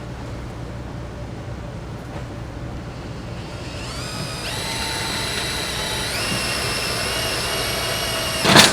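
Power drill boring a pilot hole in a steel power trowel pan: the motor's whine comes in about three and a half seconds in, steps up in pitch twice and then holds steady, with a short loud burst near the end.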